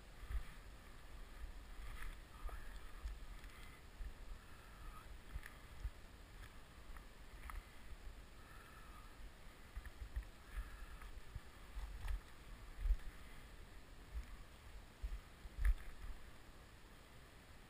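Wind buffeting and handling thumps on a body-worn camera's microphone, uneven and low, over a faint steady river rush, with a few short sharp ticks scattered through.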